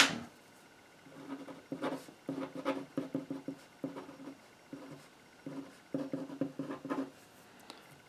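A pen writing on paper in a run of short scratching strokes, broken by brief pauses between letters and words.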